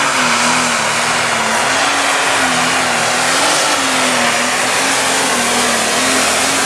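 Light pro stock diesel pulling tractor running at full throttle under heavy load as it drags a weight-transfer sled, its engine note wavering slightly up and down in pitch over a loud rushing exhaust noise.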